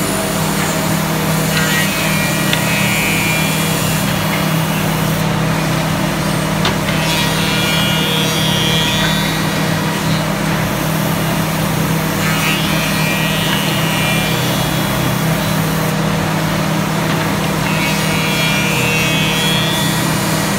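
Woodmaster CNC tenoning machine running with a steady motor hum, its router cutter milling tenons on wooden pieces in passes that come four times, about every five to six seconds.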